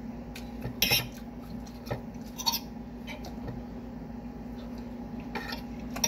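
Eating sounds: a man chewing a bite of omelette, with a few short clicks of a metal fork against the plate.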